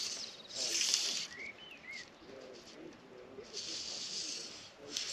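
Fly line being stripped in by hand in short pulls, each a brief rasping hiss, several times over. A bird gives a short chirp about a second and a half in, and soft low bird calls follow.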